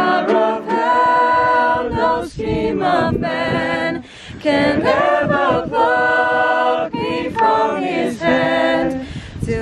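Several voices singing together in harmony, with long held notes and short breaks between phrases.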